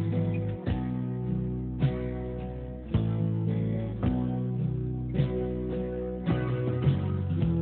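Instrumental music: an acoustic guitar strumming sustained chords, struck about once a second.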